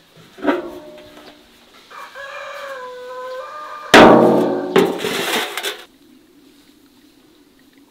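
A rooster crows in a long call that falls in pitch, after a short call about half a second in. About four seconds in comes a sudden, much louder knock and clatter, which fits the large aluminium basin being set down on a wooden table.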